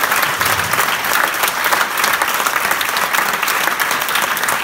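A crowd applauding: many hands clapping steadily and densely, without a break.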